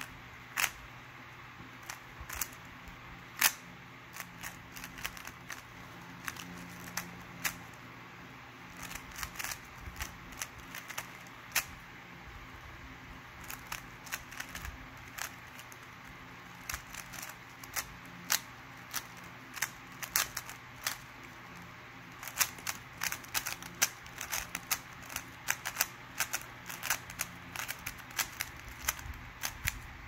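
Stickerless plastic 3x3 Rubik's cube being turned fast by hand: irregular clicks and clacks as the layers turn and snap into line. The turns come faster and closer together in the last several seconds.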